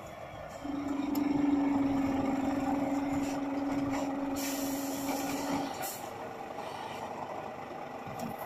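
Scania P360 fire engine's diesel engine running as the truck pulls up and stops, with a steady low tone held for about five seconds. A short hiss of air from the air brakes comes about four and a half seconds in.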